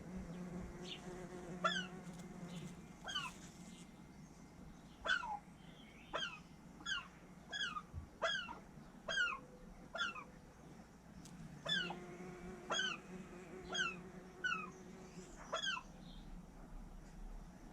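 Pet raven giving a long series of short calls, each one a quick downward slide in pitch, coming about one or two a second with brief pauses.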